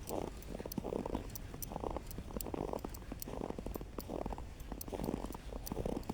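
Footsteps crunching through snow at a steady walking pace, about one step every 0.8 seconds, each step a short crunch.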